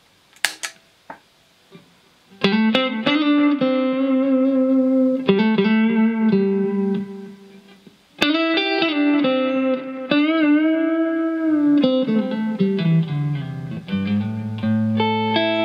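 The footswitch of a Caline Ghost Rain reverb-delay pedal clicks on, and about two seconds later clean electric guitar plays through its delay and reverb: strummed chords and single notes that ring out, some with a wavering pitch around the middle.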